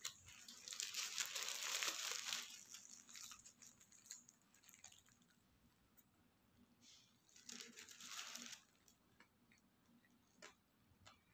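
Paper burger wrapper crinkling and rustling as it is handled around a burger, in two bouts: a louder one about a second in lasting a couple of seconds, and a shorter one around eight seconds in. Small scattered clicks in between.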